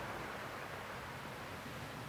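Faint, steady rushing noise with no tone or rhythm, slowly fading.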